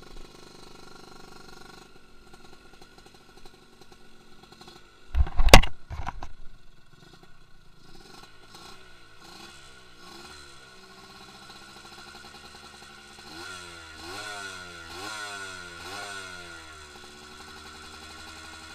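Suzuki Satria 120 two-stroke single running, freshly rebuilt to stock tune. From about eight seconds in its revs rise and drop again and again as it pulls through the gears on a test run. A loud, brief rush of noise comes about five seconds in.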